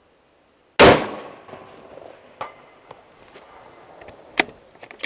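A single rifle shot from a scoped bolt-action hunting rifle about a second in, its report echoing away over the next second or so. A faint metallic ping follows about a second and a half later, the bullet striking the steel gong target at 400 yards, and a sharp click near the end as the bolt is worked.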